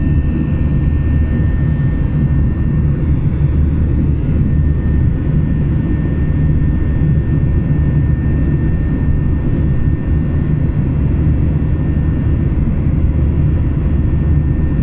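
Jet airliner cabin noise heard at a window seat beside the underwing turbofan engine: a steady low drone of engine and airflow, with a thin steady whine above it.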